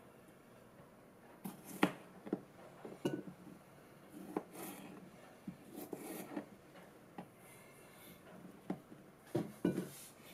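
Cucumbers being rolled and rubbed under a hand on a plastic cutting board: irregular knocks and rubbing, loudest about two seconds in and again near the end.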